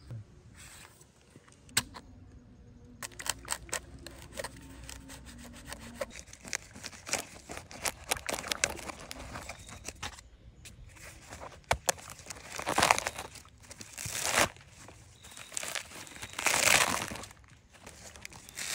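Small clicks and handling noises at first, then a coconut's dry fibrous husk being pried and torn away from the nut. This comes as several loud crackling tears, each about a second long, in the second half.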